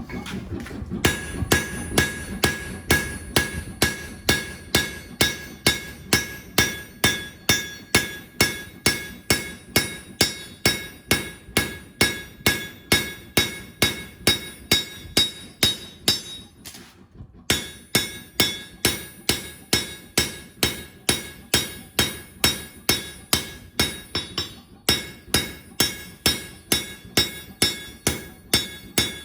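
Hand hammer blows on steel over an anvil, about two a second, each leaving a bright metallic ring; the hammering stops briefly twice and starts again.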